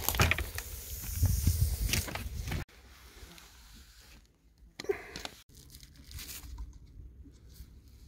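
Rustling, crackling handling noise, loud for the first two and a half seconds and then cut off abruptly, followed by quiet outdoor background with a brief faint sound near the middle.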